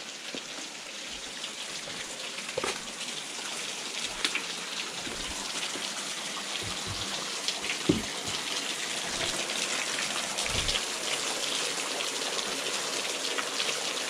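Small waterfall splashing onto rocks, a steady rush of falling water that grows gradually louder. A few soft knocks sound over it.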